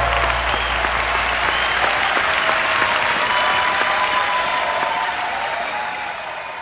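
A large crowd applauding and cheering, a dense patter of clapping that fades out near the end.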